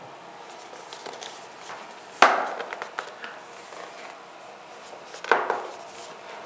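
Packaging being handled: two sharp knocks about three seconds apart, each trailing off briefly, with lighter clicks and rustles between.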